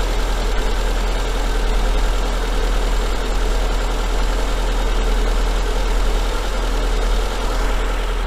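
Daewoo Sens engine idling steadily and evenly while it warms up, with no clear knock yet.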